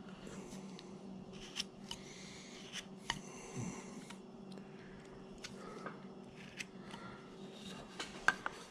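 Carving knife paring wood on a small hand-held figure: faint slicing and scraping strokes with a few sharp clicks as the blade cuts in and chips come free, over a faint steady hum.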